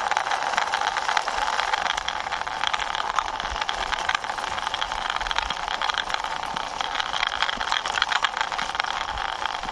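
Diecast toy military tank pushed along by hand, its small wheels rolling and rattling steadily over the surface with a dense run of fine clicks.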